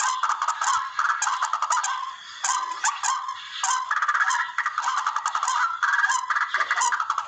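Recorded calls of the tikling, a rail played as a hunting lure call: a continuous run of rapid, harsh, repeated notes, with a brief lull about two seconds in.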